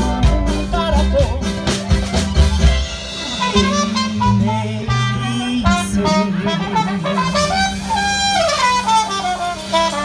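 Live Mexican–Appalachian folk-fusion band in an instrumental passage: a trumpet plays the melody over mandolin, a small acoustic guitar and an upright bass.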